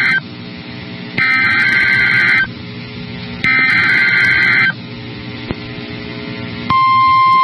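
Emergency Alert System SAME header: the end of one burst of warbling digital data tones followed by two more, each about a second long and a second apart, sending the coded warning. Near the end the steady 1050 Hz weather-radio attention tone begins.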